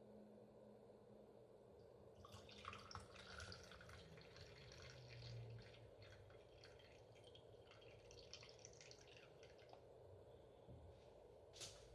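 Faint dripping and trickling of liquid, starting about two seconds in and dying away near the ten-second mark.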